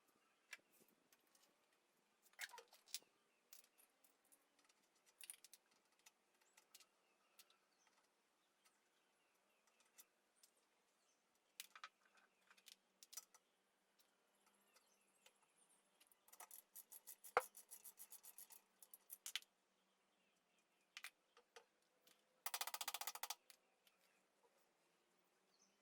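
Sparse clicks and clinks of hand tools and small metal parts being worked, with a quick run of clicks in the second half and a short dense rattle near the end.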